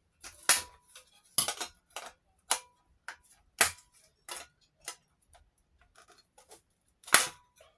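Sharp metallic snaps and clicks at irregular intervals, about eight loud ones, as the thin sheet-steel (tin) housing of a Halo recessed light is cut and worked apart with hand tools.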